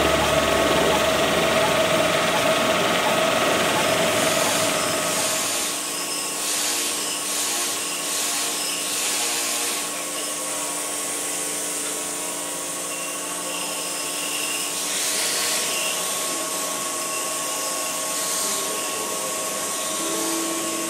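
A wire saw runs steadily through a block of statuario marble, with a low hum and the hiss of its cooling water jet. About five seconds in this gives way to hand tools scraping and rasping on marble in uneven strokes.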